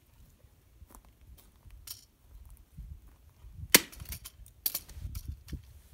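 A hatchet chopping into a plastic smoke alarm: two sharp strikes about a second apart in the second half, after a few faint knocks.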